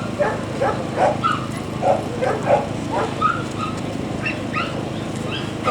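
Dogs barking in short, repeated yaps, about two to three a second at two different pitches, over a steady low background noise.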